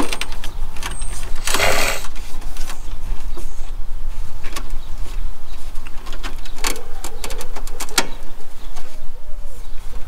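Handling noise: scattered clicks and a brief rustle about a second and a half in, over a steady low rumble. A dove coos a few times near the end.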